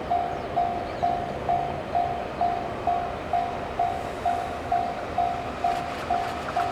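Japanese railway level-crossing warning bell ringing, a single-pitched ding repeating about twice a second, with the rumble of an approaching train underneath.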